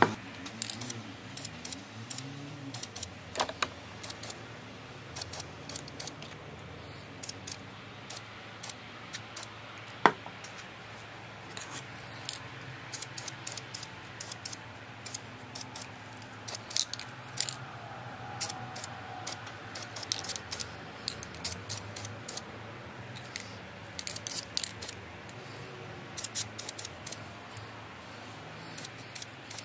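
Aerosol spray paint can fired in many quick, short bursts, each a brief hiss, coming in irregular clusters, with one louder click about ten seconds in.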